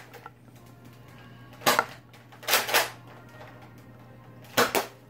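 Nerf blaster being fired and worked: short, sharp plastic clacks and pops in three brief clusters, about a second and a half to two seconds apart.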